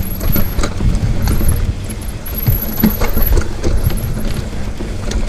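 Schwinn Axum mountain bike being ridden over a rough dirt trail: chain and parts rattling, with many sharp knocks over a steady low rumble.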